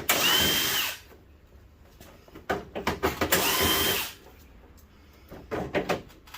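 Power drill with a hex bit backing screws out of a CRT TV's back cover. It makes two short runs of about a second each, each with a whine that rises and then holds, with clicks between and a third run starting at the very end.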